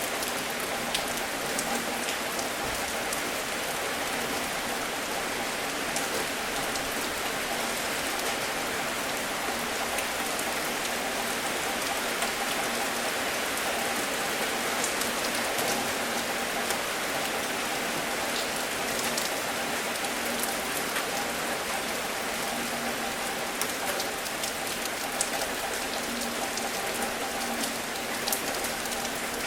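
Steady, even rain falling, a dense patter with individual drops ticking through it.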